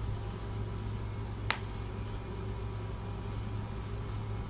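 Steady low hum and room noise, with one sharp click about one and a half seconds in.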